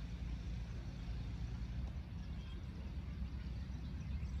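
Steady low rumble of wind buffeting the microphone, with a faint outdoor hiss and no distinct events.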